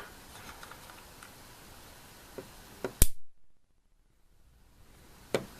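A single sharp snap about three seconds in, loud and sudden against faint room noise: a disposable camera's flash capacitor, rewired as a taser, discharging across its two wires. A fainter click follows near the end.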